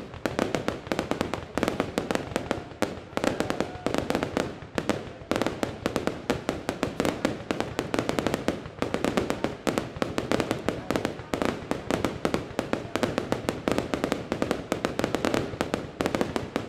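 Fireworks display going off in a dense, continuous barrage of bangs and crackles, many reports a second, starting abruptly.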